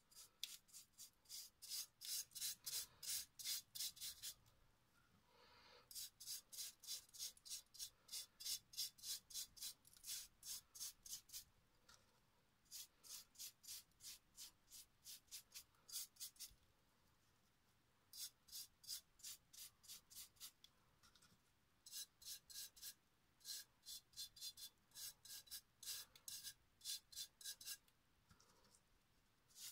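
A bristle brush scrubbing thick textured gesso onto a glass vase: quick scratchy back-and-forth strokes, about three or four a second, in runs broken by short pauses.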